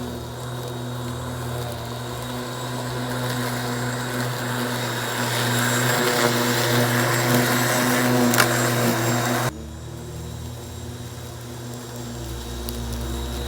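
Ryobi 1300 W corded electric lawn mower running with a steady motor hum. A rising hiss builds through the middle and cuts off suddenly about nine and a half seconds in, leaving the lower hum.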